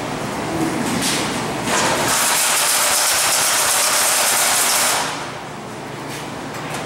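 A loud, steady rushing hiss that comes in about two seconds in and cuts off sharply about five seconds in, over a duller background noise.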